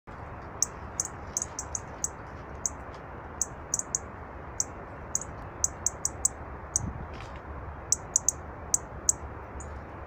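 A small songbird calling with short, sharp, high-pitched ticks, two or three a second in an irregular run, over the steady rushing of a flowing river.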